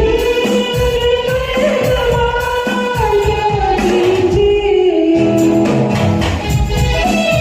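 A woman singing a Hindi film song in long, held notes that slide between pitches, over musical accompaniment with a steady drum beat.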